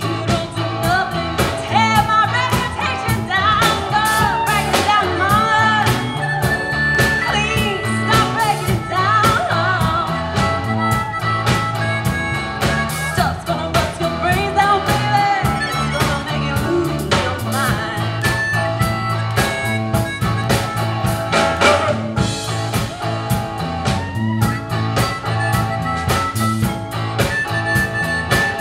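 Live blues-rock band playing, with electric guitar, bass guitar, keyboards and drum kit behind a singing voice. A harmonica joins near the end.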